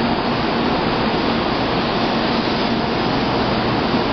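Kyushu Shinkansen train gathering speed as it departs, its cars running past the platform with a steady rushing noise of wheels and air and a faint low hum.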